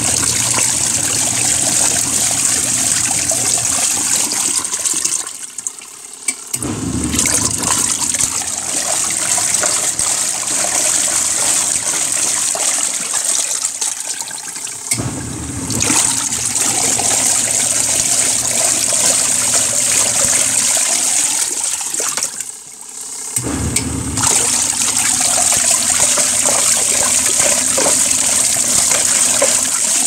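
Zeny portable washing machine running its wash cycle, the motor humming and water churning and sloshing in the tub. The churning stops briefly about every eight seconds, then starts again.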